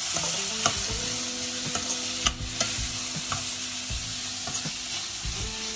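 Chopped onion and capsicum frying in butter and oil in a stainless steel kadhai: a steady sizzle, with clicks and scrapes of a metal slotted spoon stirring against the pan.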